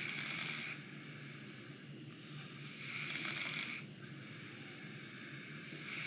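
A sleeping man snoring through his nose: hissing nasal snores about every three seconds. One ends just after the start, one falls in the middle and another begins near the end.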